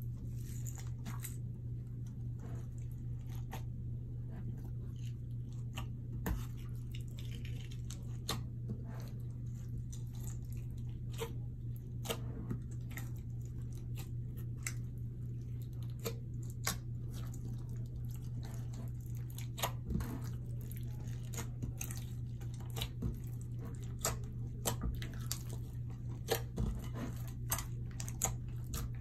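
Slime being kneaded and mixed by hand, giving irregular squishy clicks and pops that come more often in the second half, over a steady low hum.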